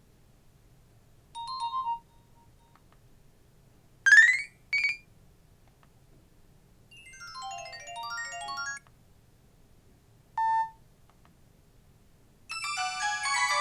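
Nokia 215 feature phone playing its built-in ringtones and alert tones one after another through its small speaker, separated by pauses: a short tone, a quick rising sweep followed by a blip, a run of notes lasting about two seconds, a single beep, and near the end a fuller many-note ringtone melody.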